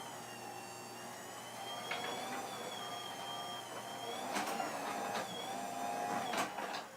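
LiftMaster 8550 belt-drive garage door opener running steadily as it raises a sectional garage door, with a faint high whine and a few light knocks from the door. It sounds quiet, with little shaking or rattling.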